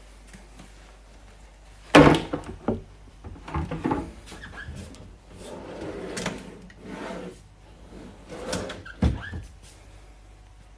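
A galley drawer being pulled open and pushed shut, the tools and utensils inside clattering, with sharp knocks about two seconds in and again near the end.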